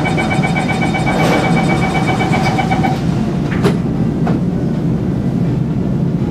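The door-closing warning tone of a Singapore MRT Downtown Line train beeps rapidly at a fixed pitch for about three seconds. Then the sliding doors shut with a sharp knock and a second, lighter knock just after. The train's steady low hum runs underneath.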